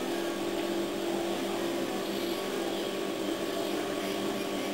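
Steady background hum with hiss, holding a few fixed low tones at an even level.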